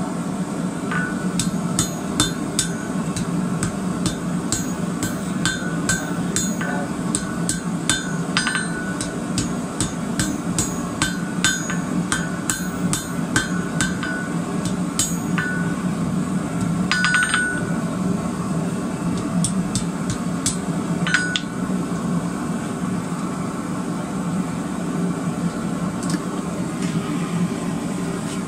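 Hand hammer striking red-hot twisted rebar on a steel anvil, each blow ringing, about two blows a second; the hammering stops about three quarters of the way through, with a few lighter taps near the end.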